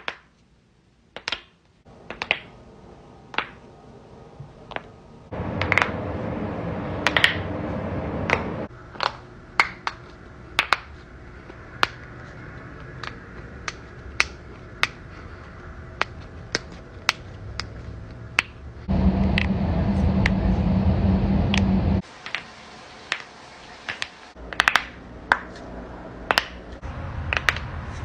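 Knuckles and finger joints cracking: a long series of sharp, separate pops, about one a second, over a low steady hum that switches abruptly in level several times.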